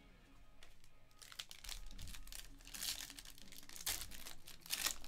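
Silver foil trading-card pack wrapper crinkling as hands work it open, a dense run of sharp crackles from about a second in.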